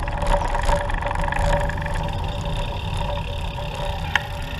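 Riding noise from a moving recumbent trike: a steady low rumble of wind and road on the microphone, with a steady whine over it. There is a sharp tick near the end.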